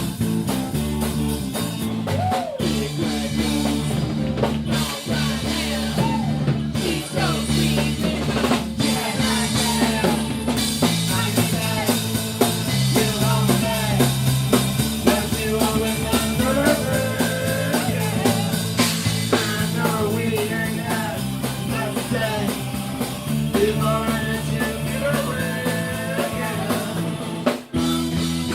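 Live band playing a rock song, with a drum kit keeping the beat under guitar and a wavering melodic lead line, and a brief stop near the end.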